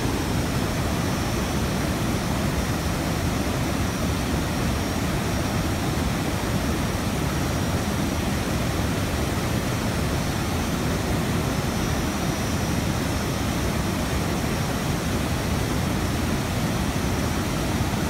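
Waterfall and rapids in flood, muddy water pouring over rock ledges in a steady low rush.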